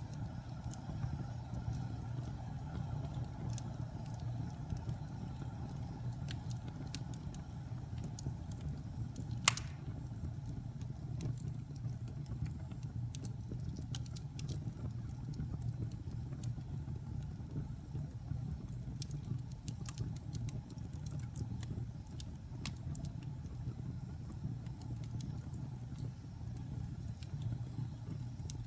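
Wood fire burning in a fireplace: a steady low rumble of the flames with scattered crackles and snaps, and one loud pop about a third of the way in.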